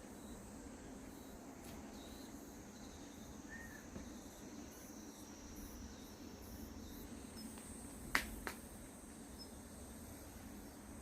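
Quiet background with a faint steady hum and a thin high steady tone, broken about eight seconds in by two sharp clicks a third of a second apart.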